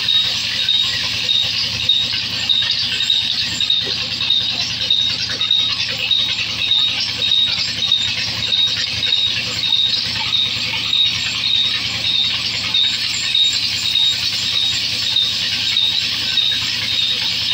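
A large wood-cutting band saw running steadily, giving a high whine that pulses about twice a second over a low machine hum.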